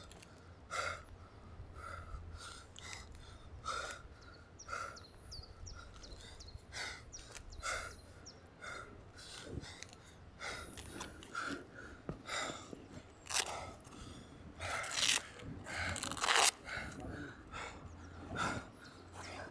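A man breathing hard under exertion during weighted squats, short puffs about once a second, with several longer, louder gasping breaths later on as he tires.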